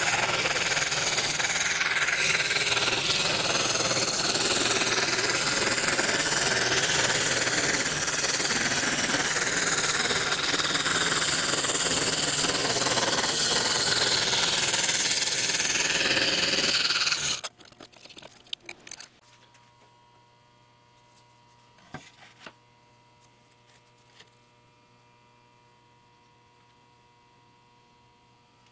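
Scroll saw running a Pegas #4 spiral blade through baltic birch plywood: a steady, dense rapid buzz. It cuts off abruptly a little over halfway through, leaving a faint electrical hum and a few light taps.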